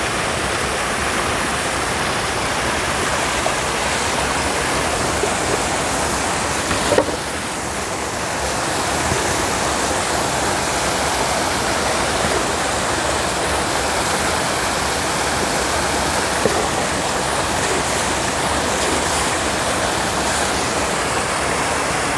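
Steady rushing, splashing water, with a single short knock about seven seconds in.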